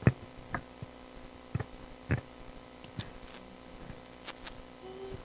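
Scattered light thumps and clicks from handheld microphones being handled, about eight in all, over a faint steady hum, with a faint held tone near the end.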